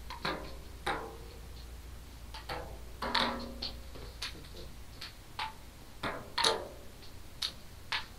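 Table-tennis ball in a rally, clicking off paddles and bouncing on the tabletop. About a dozen sharp, unevenly spaced clicks, some with a brief ring.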